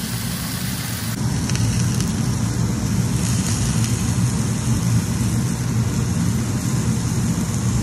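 Beef steak sizzling as it sears in a hot frying pan, a steady crackling hiss over a low, constant rumble.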